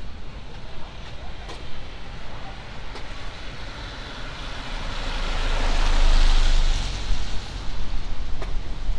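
A car passing on a wet road: the hiss of its tyres on the wet asphalt swells, peaks about six seconds in, and fades quickly, over a steady low rumble of city traffic.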